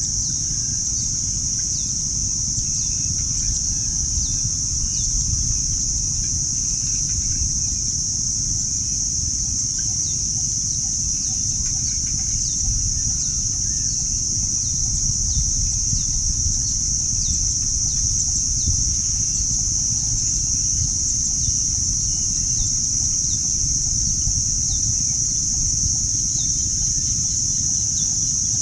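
Steady, high-pitched insect chorus droning without a break. Short falling chirps repeat through it, over a continuous low rumble.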